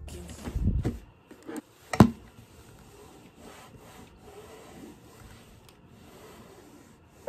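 Handheld steam iron sliding and rubbing over the cotton fabric of a white coat: a faint, steady scuffing. There is one sharp click about two seconds in.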